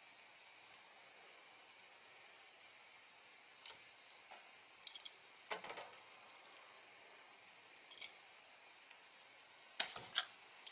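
Feeder crickets chirping in a steady high-pitched trill, with a few short sharp clicks scattered through it, the loudest two close together near the end.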